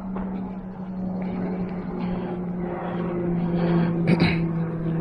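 A motor's steady drone, one hum slowly sinking a little in pitch as it grows louder, with a brief rustle or knock about four seconds in.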